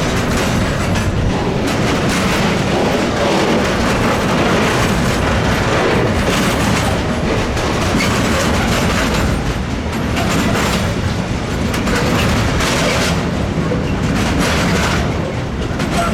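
Intermodal (KLV) freight train rolling past at steady speed, with the wagons' wheels clattering over the rail joints.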